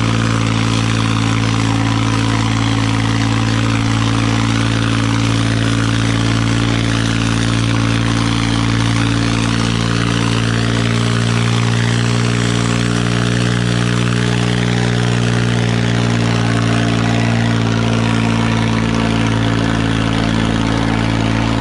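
Massey Ferguson 9500 tractor's diesel engine working hard under the heavy load of two harrows dragged through tilled soil: a loud, steady drone that holds one pitch throughout.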